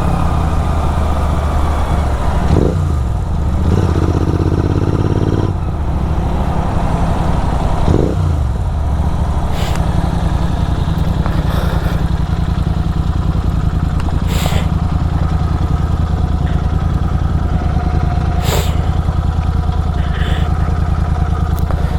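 Superbike engine with an aftermarket full-system exhaust running with a steady low drone, with brief rises in pitch about two and a half and eight seconds in.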